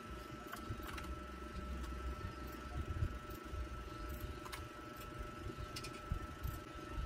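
Mechanical keyboard keys clicking now and then, a few scattered keystrokes rather than fast typing, over a steady low rumble and a faint high hum.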